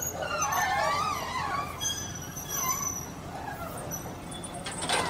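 Amphibious excavator's diesel engine running low and steady, with wavering high-pitched squeals over it in the first couple of seconds.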